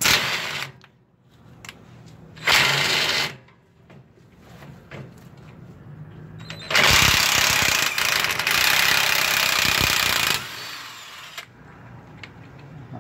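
Cordless impact wrench hammering in bursts while loosening the front sway bar's mounting bolts: two short bursts in the first few seconds, then a longer run of about three and a half seconds.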